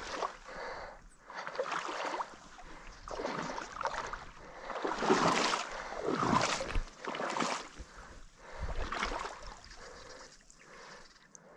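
Water splashing and sloshing in irregular surges about a second or two apart, as something moves through shallow water.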